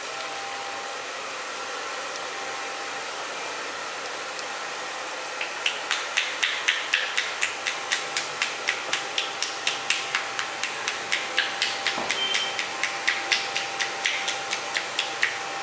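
A steady hiss for the first five seconds or so, then a rhythmic percussive head massage: hands striking the scalp in quick, even slaps, about three a second, for about ten seconds.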